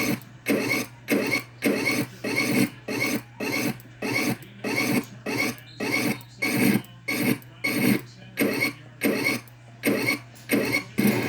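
A short rasping noise repeated in a strict rhythm, about every 0.6 s, over a steady low hum.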